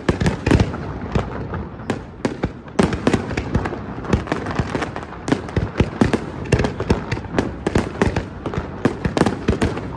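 Fireworks display: aerial shells bursting in a dense, irregular barrage of bangs and crackles, several a second, with the loudest bangs just after the start.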